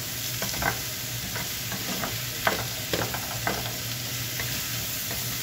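Chunks of zucchini and tomato sizzling in a frying pan while a wooden spatula stirs them, with scattered scrapes and knocks of the spatula against the pan.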